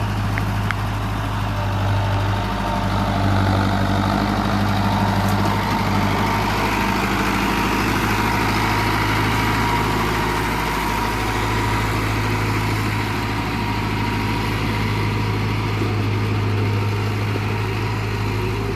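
Mahindra Arjun Novo 605 DI-i tractor's diesel engine running steadily with a low, even hum.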